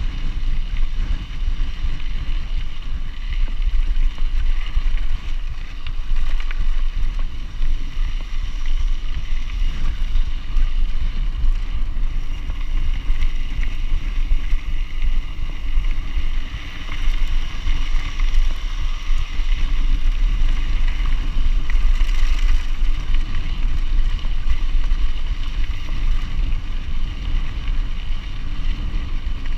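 Mountain bike riding along a gravel dirt track: a steady low rumble of tyres on the gravel, mixed with wind buffeting the camera's microphone.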